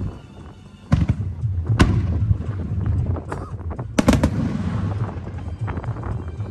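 Aerial firework shells bursting: sharp bangs about a second in, near two seconds and a cluster around four seconds, with a low rumble and crackle between them.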